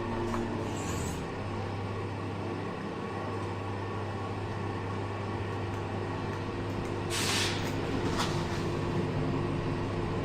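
Passenger lift car travelling upward, giving a steady low hum with a higher tone over it. A short hiss comes about seven seconds in, and a click about a second later.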